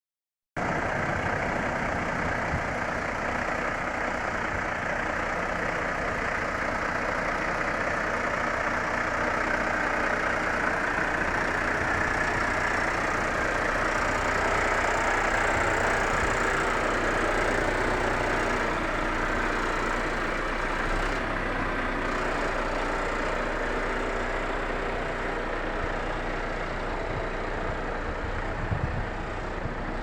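Heavy vehicle running steadily, an even engine and road noise that starts about half a second in and holds without change.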